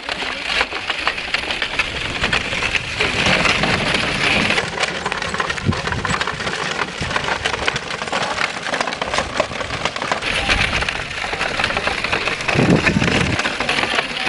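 Horse-drawn carriage rolling over a gravel track: wheels crunching and rattling in a dense, steady crackle of small clicks.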